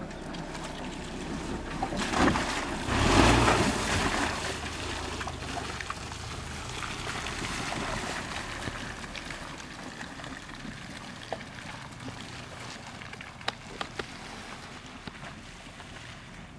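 An SUV driving through a muddy puddle, its tyres splashing and sloshing through the water over the engine, loudest a couple of seconds in. Then it settles to a softer wash of water, with a few sharp clicks near the end.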